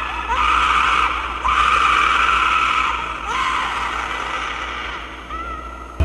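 Spooky title-sequence sound effect: a hissing, screeching noise with three short rising swoops, fading slowly, and a wavering tone coming in near the end.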